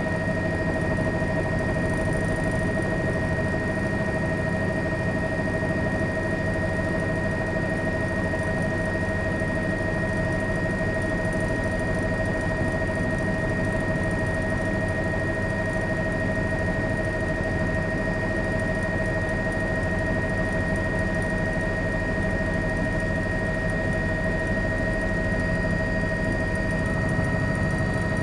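A steady engine drone that never changes, with constant whining tones above it.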